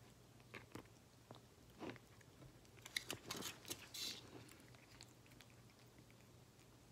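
Siamese cat eating soft wet cat food: faint, wet chewing and licking clicks, most of them bunched together about three to four seconds in.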